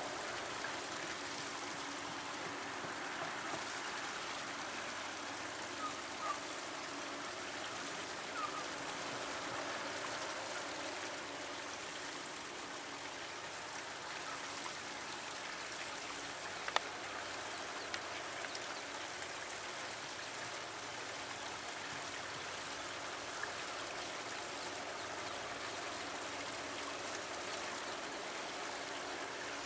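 Steady rush of running water, with a few faint short chirps early on and a single sharp click about halfway through.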